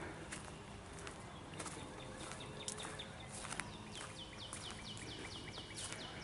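Footsteps along a trail, with a bird calling. The bird gives short high notes, then a quick run of falling notes at about four a second in the second half.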